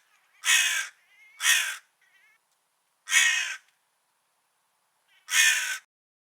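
A crow cawing: four caws of about half a second each, spaced one to two seconds apart, with a few faint short calls between the first ones.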